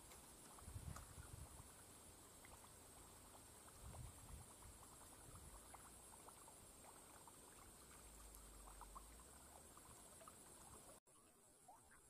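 Near silence: faint outdoor ambience with a steady high hiss, scattered small ticks and a few soft low bumps. It cuts out abruptly near the end.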